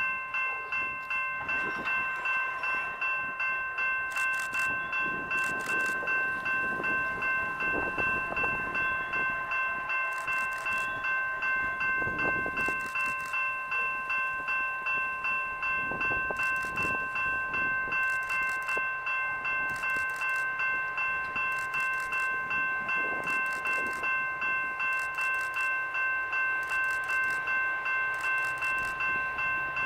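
Railroad grade crossing warning bell ringing steadily, about two strikes a second, each strike ringing with several clear tones, warning of an approaching train.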